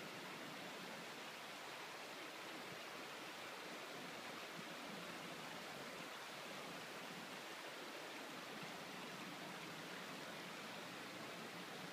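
Steady, even rush of a mountain stream flowing over rocks, with no distinct events.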